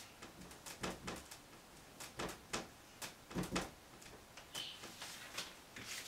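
Dry-erase marker writing on a whiteboard: a string of short, irregular strokes and taps, with a brief high squeak about four and a half seconds in.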